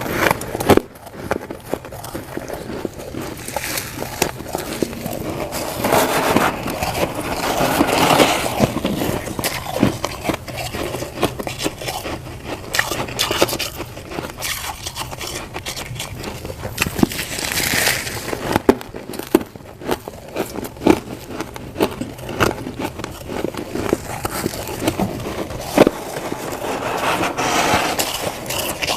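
Crunchy humidifier frost crunching and scraping, a dense run of short crackles and clicks that swells louder several times.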